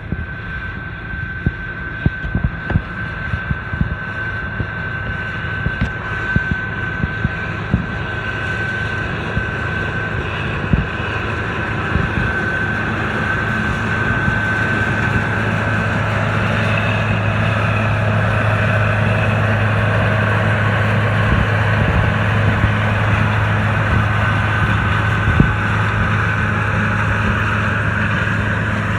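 New Holland TR99 combine running steadily under load while harvesting soybeans: a low engine drone with a steady high whine over it. Scattered sharp ticks through the first dozen seconds, and the sound grows slowly louder.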